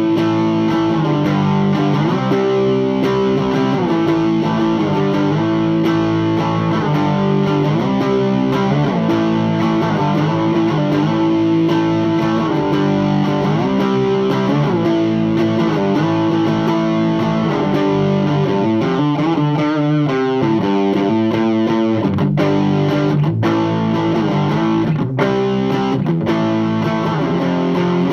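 Electric guitar playing driven chords and riffs through a Thick Electronics Thickener overdrive pedal into an Orange Super Crush 100 amp, with a thick overdriven tone. There are a few short breaks between chords near the end.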